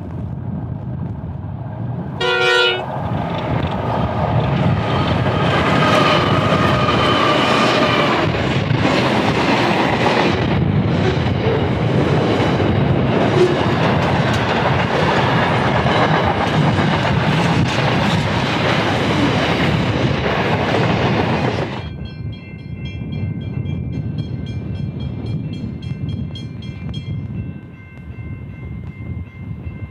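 A short blast from the horn of GE Cv40-9i (NR class) diesel-electric freight locomotives, then the locomotives and a long train of steel wagons and container flats passing close by: loud engine and wheel-on-rail noise. After about twenty seconds the sound cuts abruptly to a quieter stretch with several steady high tones lasting a few seconds.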